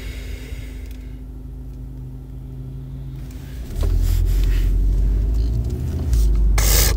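Car cabin noise from a moving car: a steady low engine and road rumble that grows much louder about four seconds in. A short rush of hiss comes near the end.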